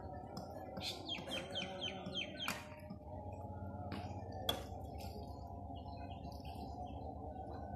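A bird calling a quick run of about six falling whistled notes about a second in, over a steady low background noise, with two sharp clicks, one about two and a half seconds in and the other about four and a half seconds in.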